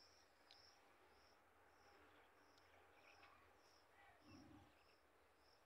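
Near silence with faint cricket chirps repeating evenly, a little under twice a second, and a brief faint low sound about four seconds in.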